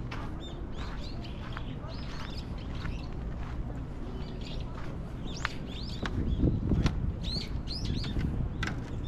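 Small birds chirping, many short quick calls repeated throughout, over a steady low rumble that swells briefly about six seconds in.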